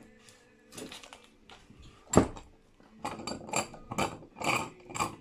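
Clatter and knocks of clamps being handled and repositioned on a glued guitar neck: one loud knock about two seconds in, then a run of rattling clicks near the end.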